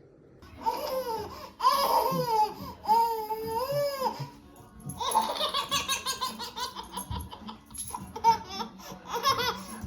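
Laughter, mostly a baby's high-pitched laughing: a few long squealing laughs in the first half, then a run of quick giggles.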